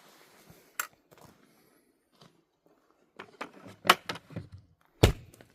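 A series of knocks and thunks from objects being handled and set down. There is one sharp knock about a second in, a quick cluster of knocks a little past three seconds, and two loud thunks near the end.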